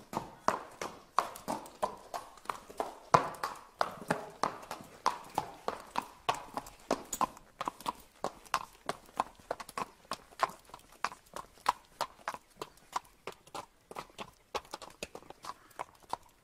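Horse hooves clip-clopping on a paved street at a walk, a steady rhythm of about three hoofbeats a second.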